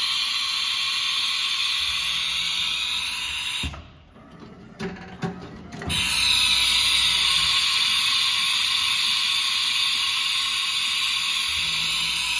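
Haas GR-712 CNC gantry router running during an automatic tool change, with a steady high whine and hiss. It cuts out for about two seconds a third of the way in, when a few clicks and clunks are heard, then starts again abruptly.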